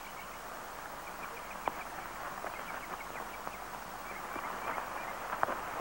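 Outdoor soundtrack ambience: a steady hiss with faint, quick bird chirps in the first few seconds and a few scattered light knocks of footsteps and a horse moving on dirt.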